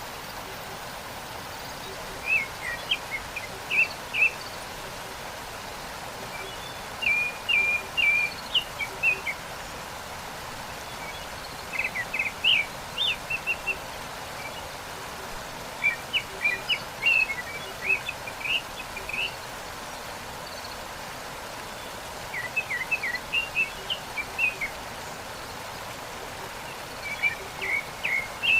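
A songbird singing short phrases of quick high chirps, six phrases each about two seconds long, coming roughly every five seconds over the steady rush of a waterfall.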